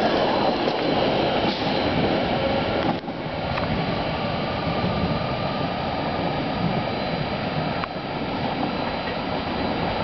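Passenger coaches of a departing EuroCity train rolling past close by: a loud, even rumble of wheels on rails. About three seconds in it drops suddenly to a quieter, steady rumble as the train pulls away.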